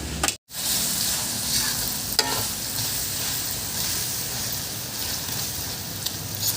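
Food frying in a pot with a steady sizzle, and one sharp clink of a utensil against the pot about two seconds in.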